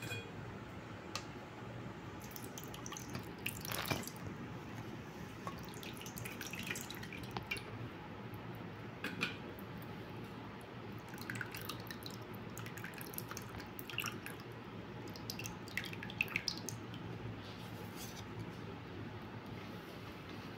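Chicken gravy trickling and dripping through a plastic mesh strainer into a steel pot, faint, with scattered small splashes and light taps.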